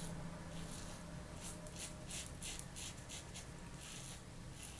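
Rockwell 6S safety razor with its mild #2 baseplate scraping through lathered stubble: a run of short, quick strokes starting about a second and a half in, with one more stroke near the end.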